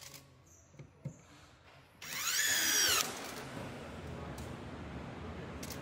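Handheld electric power screwdriver with a long extension driving a nut: about two seconds in, its motor whines for roughly a second, the pitch rising and then falling before it stops.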